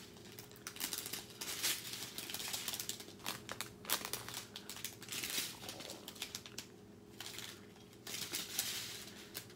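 Strip of small clear plastic zip-lock bags holding diamond-painting drills crinkling as it is handled and turned, with irregular sharp crackles and short rustles.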